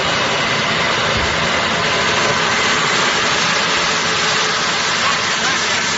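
Electric coconut grating machine running steadily, its rotary grinding disc shredding coconut meat into a fine grated mass: a loud, even mechanical whirr and grind with no let-up.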